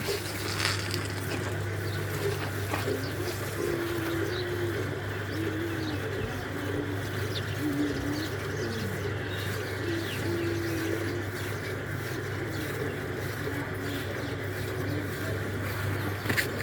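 Doves cooing repeatedly in short, low notes over a steady low hum.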